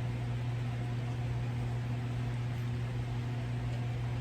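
Portacool evaporative cooler's fan running, a steady drone with a constant low hum and an even rushing noise.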